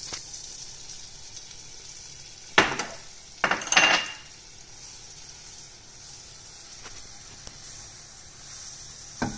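Melted butter sizzling gently in a frying pan as flour is tipped in and whisked to start a roux, with two brief clinks of the ramekin and whisk against the pan about two and a half and three and a half seconds in.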